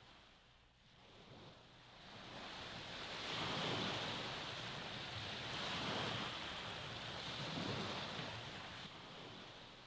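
Waves washing on open water, a soft rushing that swells and ebbs a few times, loudest in the middle.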